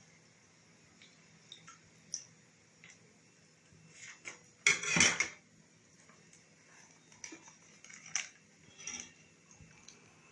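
Kitchen handling sounds while roqaq sheets are laid in a greased metal baking tray: scattered light clicks and taps of utensils and tray, with one louder noisy burst lasting under a second about five seconds in.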